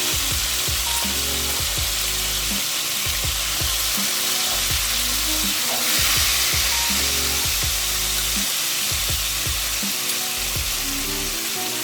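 Sliced mushrooms sizzling steadily in hot olive oil with garlic and anchovies in a pan, over background music.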